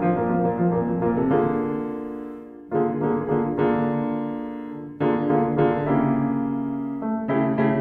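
Background solo piano music: chords struck and left to ring and fade, with a new chord every second or two.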